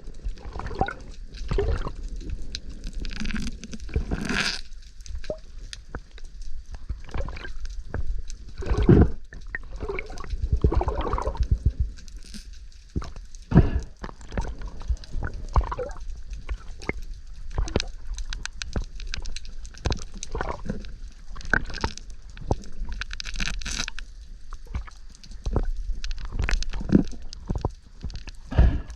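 Water gurgling and sloshing around a GoPro's waterproof housing, with irregular knocks, clicks and scrapes and a couple of brief hissing swishes.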